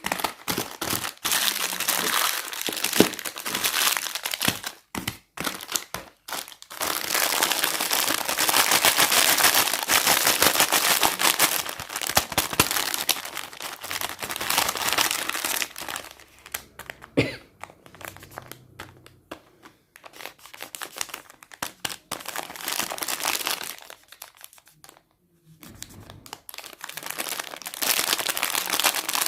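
Cake packaging being handled and opened, crinkling and crackling. A few sharp clicks come first, then long stretches of dense crinkling with a short quiet gap a little before the end.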